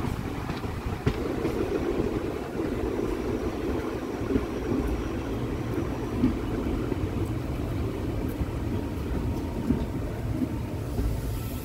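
Passenger train running on the track: a steady low rumble with a few sharp knocks.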